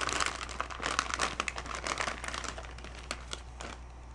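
Shiny plastic packaging around a graphics card crinkling and rustling as it is unwrapped by hand, with many sharp crackles; it dies down after about two and a half seconds to a few faint clicks.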